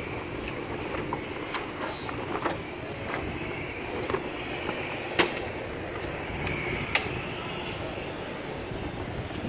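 Sailcloth of a jib rustling as it is handled and rolled up, with several sharp taps and knocks, the loudest about five and seven seconds in.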